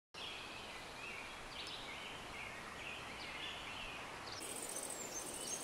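Outdoor ambience of small birds chirping and twittering. About four seconds in, a high, steady, pulsing insect chirring starts, typical of a grasshopper or cricket stridulating in grass.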